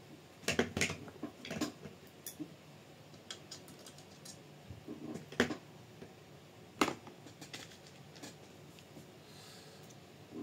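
Scattered light clicks and taps of small screws, parts and a tool being handled while a bolt is fitted to a scale RC model chassis kit. The sharpest clicks fall about half a second, five and a half and seven seconds in.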